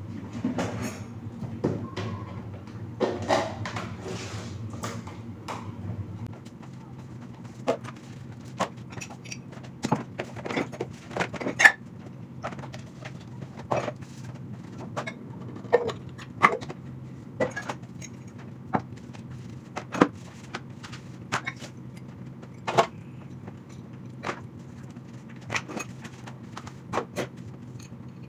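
Dishes being washed by hand: plastic bowls, basins and metal pots knocking and clinking against each other, in irregular sharp knocks about every second, with water splashing over the first six seconds.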